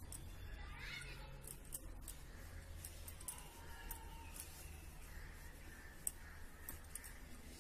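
Faint rustling of a cloth shawl being handled and smoothed flat by hand, with scattered small clicks over a low steady hum.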